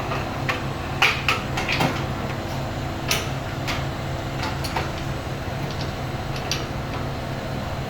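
Metal chain links clinking and clattering as the chain is handled and pulled through, a cluster of sharp clanks about a second in and single clinks after, over a steady low machinery hum.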